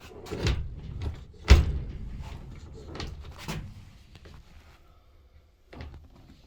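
A heavy wooden exterior door is swung against its frame several times, with knocks and rattles as the newly fitted latch bolt strikes the jamb. The loudest knock comes about one and a half seconds in. The latch is not catching because it does not line up with the strike plate.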